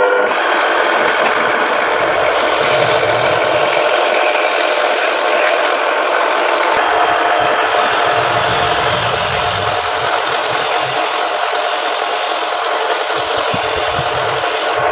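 Turning tool ground from an old sickle blade cutting into a wooden vase spinning on a wood lathe: a steady, continuous cutting and scraping noise over the running lathe.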